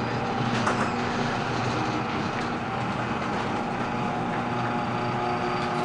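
LiftMaster 3265 chain-drive garage door opener running steadily as it lowers an unlubricated sectional door, with a few squeaks and a grinding sound from the dry door hardware. A click about a second in.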